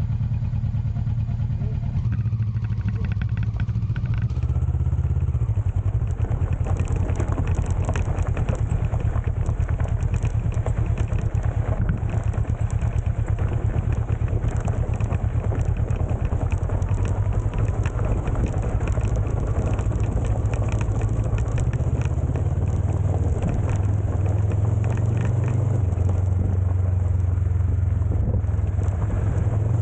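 Motorcycle engine running steadily while riding along a loose gravel track, with a rough rush of tyre and wind noise that grows louder about four seconds in.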